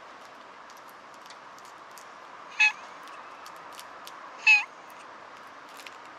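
Black cat meowing twice: two short, loud meows about two seconds apart, the second ending in a falling hook.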